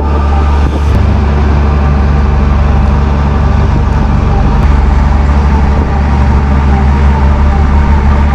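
Excavator's diesel engine running steadily under hydraulic load as the boom raises the bucket; the engine note steps up about a second in.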